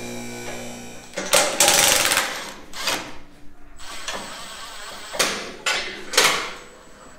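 An electric lift motor hums steadily and stops about a second in. Then a Makita cordless impact driver rattles in several short bursts, the longest lasting about a second.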